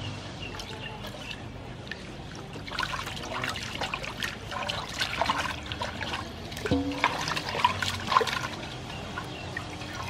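Water sloshing and splashing in a metal basin as a whole raw chicken is rubbed and turned by hand, with water running off it as it is lifted out near the end.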